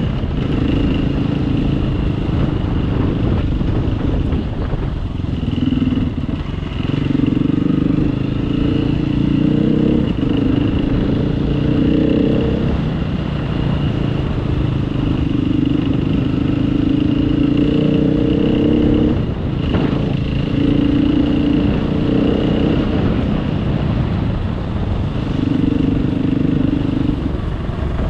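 Trail motorcycle engine running as it is ridden along a rough grassy track, the revs rising and falling with short dips as the throttle is eased, over a constant low rumble.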